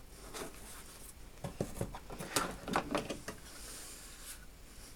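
Small metal lathe tooling handled in a toolbox drawer: a few light clicks and short rubbing scrapes about a second and a half in.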